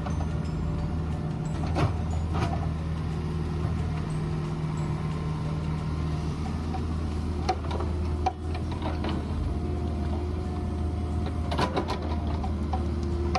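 Mini excavator's diesel engine running steadily, with a few sharp knocks as it works: one around two seconds in, a couple near the middle and a cluster near the end.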